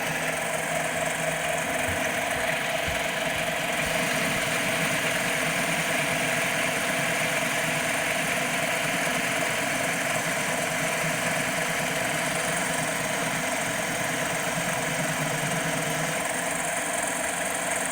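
CNC mini lathe running steadily through an OD arc program: spindle motor and stepper-driven tool feed hum while the tool cuts a ball radius into the turning workpiece.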